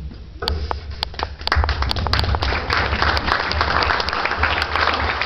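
Audience applause: a few scattered claps about half a second in, quickly building into steady clapping from the crowd.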